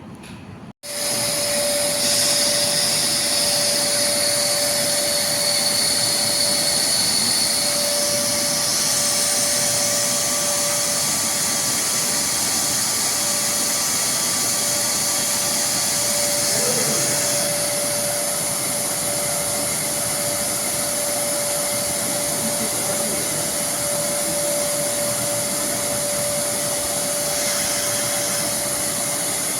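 Vacuum cleaner motor running steadily with a steady hum and a high whine, cutting in abruptly just under a second in.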